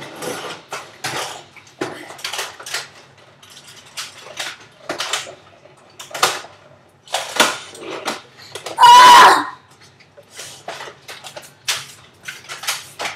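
Scattered clicks, knocks and clatters, with one short loud yell about nine seconds in.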